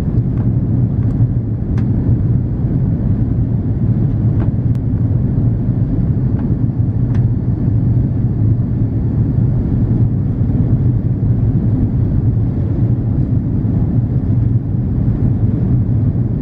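Steady cabin noise inside an Airbus A340-300 in flight: a low rumble of airflow and its four CFM56 turbofan engines, with a few faint clicks in the first half.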